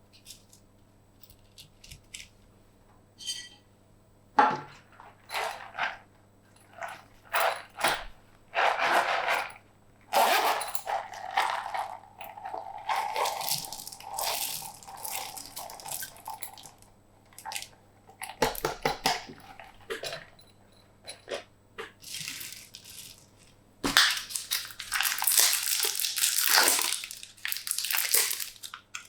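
Hands squishing and kneading slime in irregular bursts, a few small clicks at first, then longer and louder squishes, loudest near the end.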